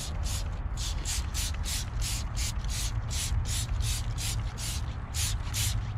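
Hand trigger spray bottle pumped rapidly, giving about three to four short hissing spritzes a second as wheel cleaner is sprayed onto a car wheel, over a low steady rumble.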